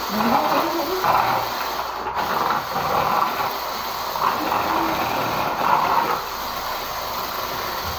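Hand-held stick mixer with a whisk attachment running steadily as it beats cake batter in a plastic bowl.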